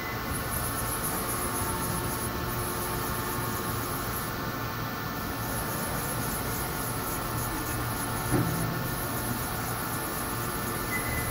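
Doosan DMV4020 vertical machining center running with its table traversing: a steady machine hum made of several steady tones, with a high hiss that cuts in and out every few seconds and a single knock about eight seconds in.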